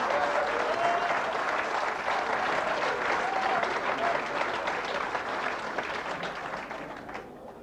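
Theatre audience applauding, with some laughter mixed in; the applause fades away near the end.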